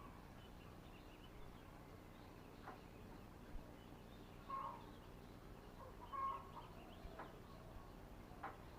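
Faint chicken clucks, a few short calls, with a few light clicks between them.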